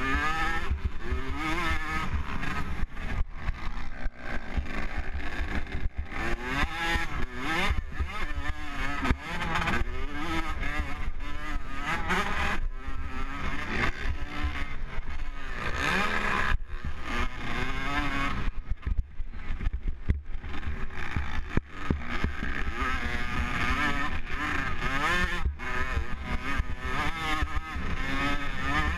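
Motocross bike engine revving up and down as the rider works through the gears on a dirt track, easing off briefly about two-thirds of the way through, with wind buffeting the helmet camera's microphone.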